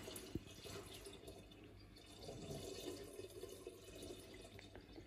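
Faint running and dripping water, with a few soft ticks.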